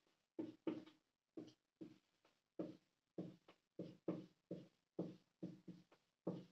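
Marker pen writing on a whiteboard: a faint series of short strokes, about two a second, as letters are drawn.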